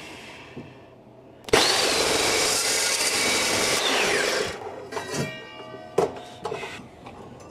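Evolution miter saw starting up and cutting through quarter-inch-wall steel square tubing for about three seconds, then let go and spinning down with a fading whine. A sharp knock comes about six seconds in.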